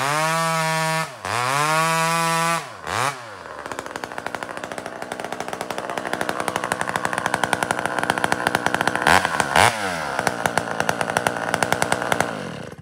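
Pioneer P-51 two-stroke chainsaw with a modded muffler and new Tillotson carburetor, revved high with three quick throttle drops, then dropping to a pulsing idle with a short blip near the middle. It is switched off suddenly near the end.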